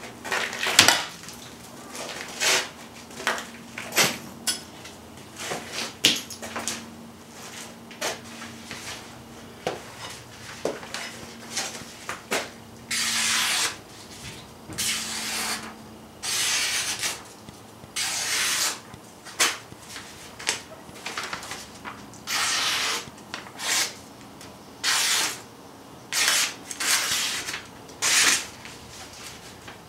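A hand-forged knife slicing through a sheet of paper held in the air: crisp cutting hisses, each half a second to a second long, come again and again from about halfway through, with paper crinkling and rustling between them. It is the paper-cutting test of the edge after chopping hardwood and ice.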